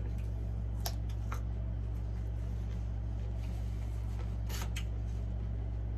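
A steady low hum runs throughout, with a few short clicks and a brief rustle about four and a half seconds in: quiet eating and food-handling noises.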